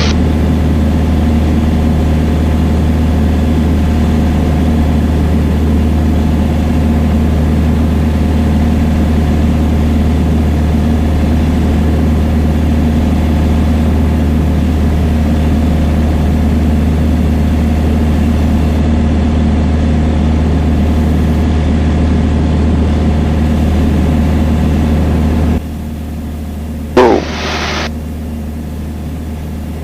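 Steady drone of a Piper Dakota's single piston engine and propeller in cruise, heard in the cockpit. Near the end the drone drops sharply in level, and a short, sharp rising sound follows.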